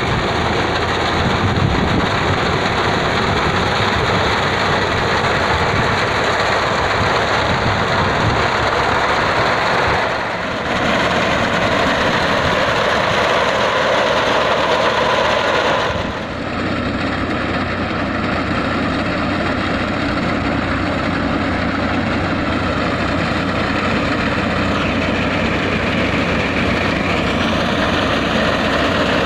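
Old Al-Ghazi tractor's diesel engine running steadily under load while it drives a front-mounted wheat reaper through the crop. The sound dips briefly about ten and sixteen seconds in.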